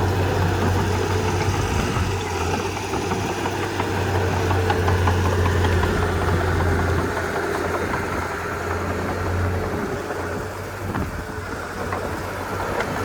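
Komatsu D31P bulldozer's diesel engine running steadily, easing off about nine seconds in and picking up again near the end.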